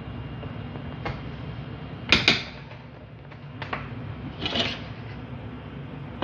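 A metal spoon knocking and clicking against a metal baking pan as basbousa batter is spread in it, a few separate sharp knocks with the loudest pair about two seconds in and another at the end, over a steady low hum.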